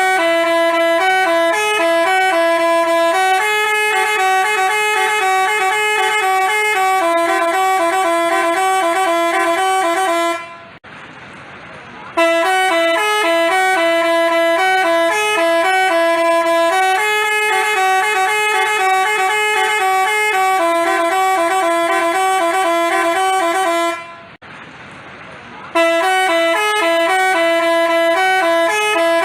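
A bus's telolet basuri musical horn playing a tune of held, stepping notes. It breaks off twice for a second or two, starting the same tune over each time.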